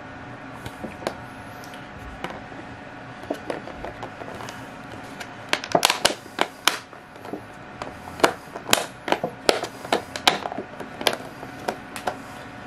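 Fingers handling a thin plastic deli cup and its paper towel lining: a run of sharp crinkles and clicks, scattered at first and dense from about halfway through, over a steady low hum.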